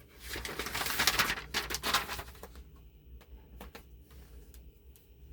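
Foam pad being handled and fitted onto a battery cell: a crackly rustling for about two seconds, then a few light clicks.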